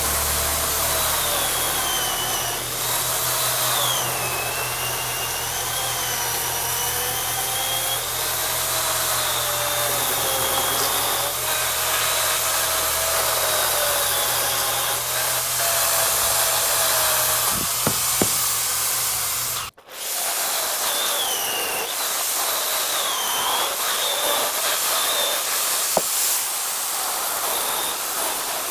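Chainsaw running at high revs while cutting through a log, its engine pitch sagging and recovering as the chain bites. The sound drops out for an instant about two-thirds of the way through, then carries on.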